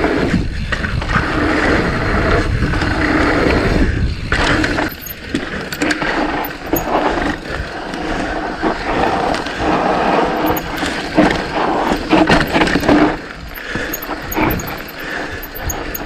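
Mountain bike riding a dirt trail: tyres rolling and scraping over dirt and rocks, with the bike rattling and clattering over bumps.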